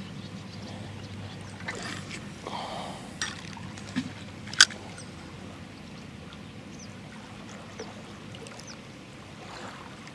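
Faint, steady outdoor background with a few short, sharp clicks from a feeder rod and spinning reel being handled just after a cast. The loudest click comes a little under five seconds in.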